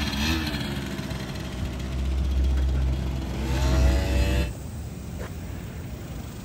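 Suzuki LT80 Quad Sport's small two-stroke single-cylinder engine revving. The pitch falls, then climbs again about three and a half seconds in, and the engine sound stops abruptly about a second later, leaving a quieter background with a single click.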